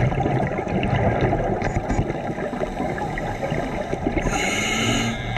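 Scuba diver's exhaled regulator bubbles rumbling and gurgling underwater, with a short higher hiss about four seconds in.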